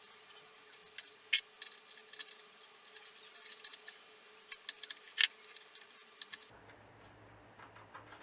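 Small 3D-printed single-cylinder compressed-air engine ticking and clicking, the clicks unevenly spaced, with two sharp, much louder clicks. Near the end the background changes abruptly and a low hum comes in.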